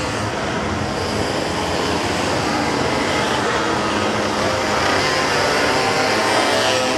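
Pocket bike engines running at high revs, a continuous buzzing whine that rises in pitch about four to five seconds in.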